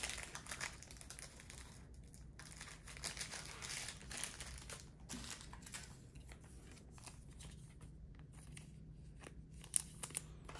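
Plastic card sleeves and trading cards being handled, crinkling and rustling in short irregular bursts with light clicks and taps and one sharper tap near the end.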